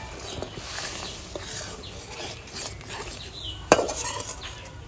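Metal spatula stirring gravy in an aluminium kadai, with light scraping and small clicks against the pan, and one sharp metal clank about three-quarters of the way through.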